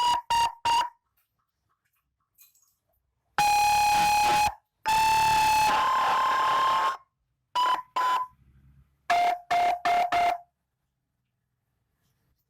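200-watt CJB patwal siren module sounding through a black iron TOA horn speaker, cycling through electronic tones: three quick blips, then two long steady tones of about a second each, the second stepping up in pitch halfway through. Two short blips and four quick lower-pitched blips follow.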